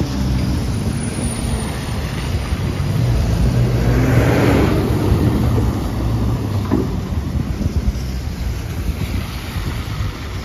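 Traffic passing on a wet street. A backhoe loader's diesel engine runs close by, with its rumble swelling about four to five seconds in. Tyres hiss on the wet road and wind buffets the microphone.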